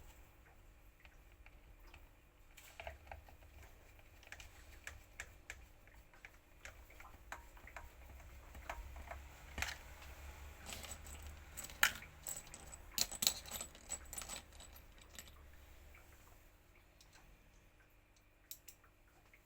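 Irregular light clicks and taps of small hard parts being handled, busiest in the middle, over a faint low hum.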